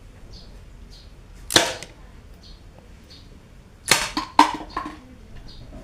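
Handmade rubber-band toy pistol snapping as it fires: one sharp snap about a second and a half in, then a quick run of four sharp clacks near four seconds.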